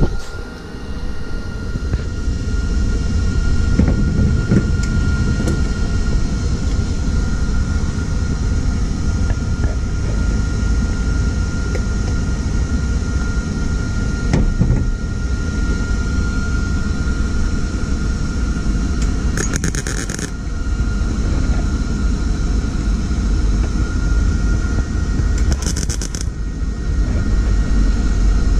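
MIG welder running a continuous arc, tacking a thin sheet-metal rust-repair patch into a Toyota Land Cruiser roof. It makes a steady, dense crackle with a faint high whine under it. The welder is still on settings for about 14-gauge metal, a little too hot for this thin panel.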